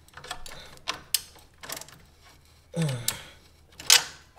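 Scattered clicks of a ratchet wrench and metal tool handling as a bracket nut is tightened on a motorcycle frame. A brief vocal sound comes about three seconds in, and a louder knock just before the end.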